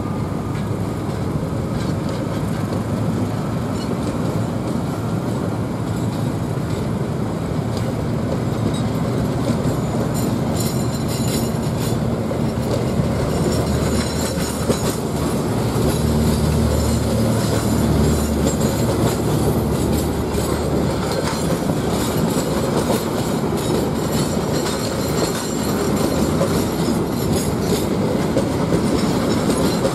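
Passenger coaches of the Krakatau train rolling past on the rails. The steady rumble of the wheels is broken by many short clacks.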